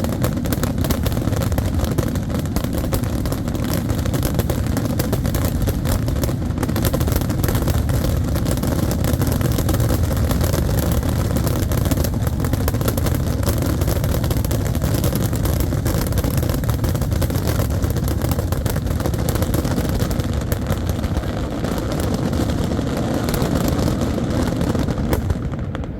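Fireworks finale: a dense, continuous barrage of overlapping shell bursts and crackle, merging into one loud rumble that eases slightly near the end.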